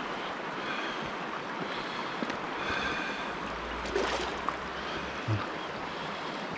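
Steady rush of flowing creek water, with a sharp click about four seconds in and a short low thump a second later.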